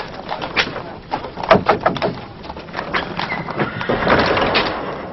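Irregular knocks and clatter, heaviest about a second and a half in, followed by a short stretch of rough, dense noise near the end.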